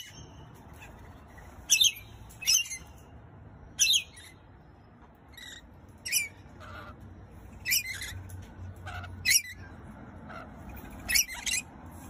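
Rainbow lorikeets giving short, shrill screeches, about ten of them at irregular gaps of a second or two, over faint outdoor background noise.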